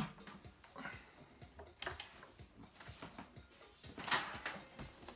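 Handling noises as a cardboard boombox box is moved on a wooden table: a sharp knock at the very start, a lighter bump about two seconds in, and a brief scrape and rustle of cardboard about four seconds in as the box is lifted.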